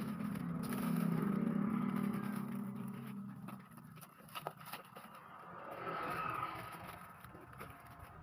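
Clear plastic wrap crinkling and tearing as it is pulled off a desktop computer case, with sharp crackles throughout. Under it, a motor vehicle's engine hum swells and fades over the first three seconds, and a second swell comes about six seconds in.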